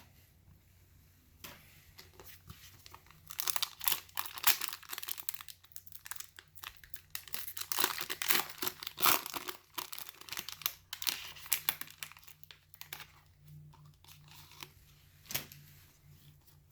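Wrapper of a trading card pack being torn open and crinkled in the hands: a dense run of crackles and rustles, thinning out later with one sharper click.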